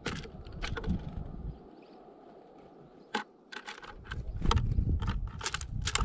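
Eurasian tree sparrow pecking at sunflower seeds on the plywood floor of a feeder close to the microphone: irregular sharp taps and cracks. Wind rumbles on the microphone, dropping away for a couple of seconds in the middle.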